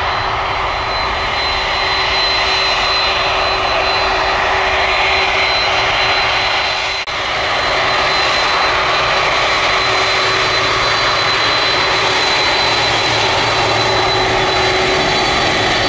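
Jet airliner engines running loud and steady: a broad rush with a constant high-pitched whine and a lower hum on top, dipping briefly about seven seconds in.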